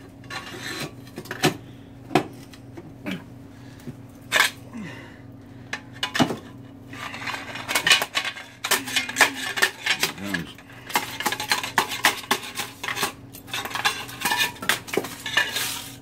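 A steel pry bar jabbed down inside a Harley stock exhaust pipe, clanking against the metal as it beats down and breaks up the catalytic converter core. Separate sharp knocks at first, then a dense run of scraping and rattling from about seven seconds in.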